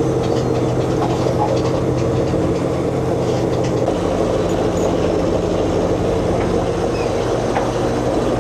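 Steady drone of a purse seiner's diesel engines and deck machinery running while the net is hauled up. The low hum shifts in pitch about four seconds in.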